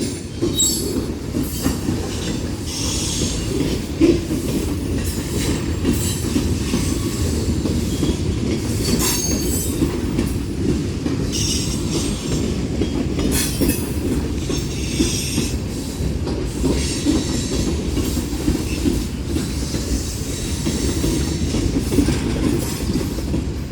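Union Pacific freight train's autorack cars rolling past at close range: a steady rumble of steel wheels on rail, with irregular clatter and short bursts of high-pitched wheel squeal.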